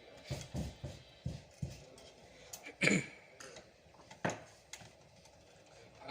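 A string of light knocks and clatters of hard objects being handled, several close together in the first two seconds, the loudest about three seconds in and another sharp one just after four.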